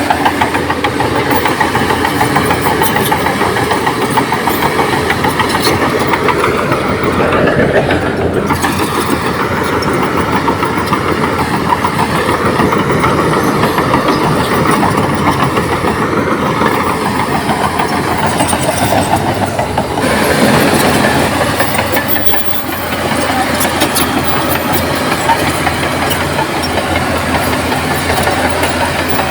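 Diesel engine of a crawler bulldozer (Komatsu D58P) working under load, its engine speed rising and falling a few times, with a dense rattling clatter running underneath.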